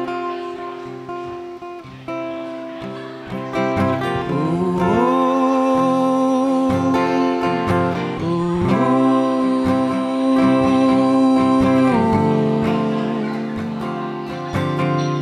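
Solo acoustic guitar strummed with a man singing over it. The voice comes in about four seconds in, sliding up into long held notes.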